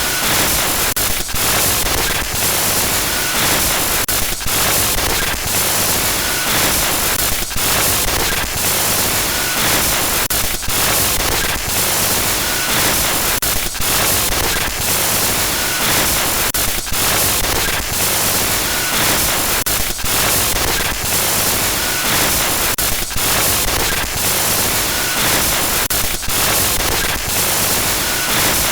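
Loud, harsh static hiss, a glitch-noise sound effect, broken by short dropouts about every second or so.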